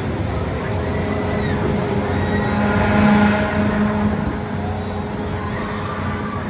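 Huss Tornado fairground ride running: a steady low machine hum that swells to a peak about three seconds in, then settles back.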